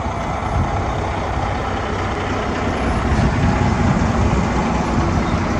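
Vehicle engine running with a steady low rumble, growing slightly louder a little way in.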